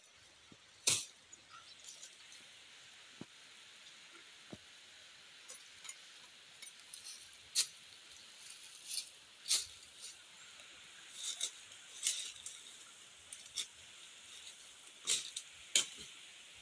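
Dry twigs and leaf litter snapping and crackling at irregular intervals, a dozen or so sharp cracks, over a steady high hiss.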